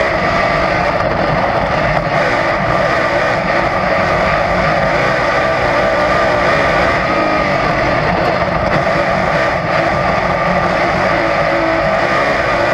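Dirt-track race car's engine running hard at racing speed, loud and steady, heard from inside the cockpit.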